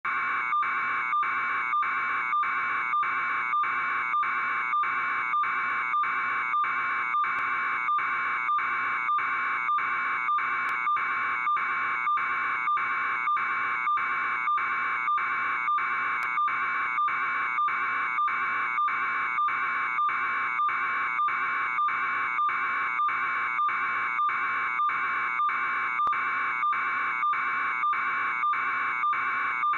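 An electronic buzzer-like tone pulsing evenly about twice a second, with no change in pitch or loudness throughout.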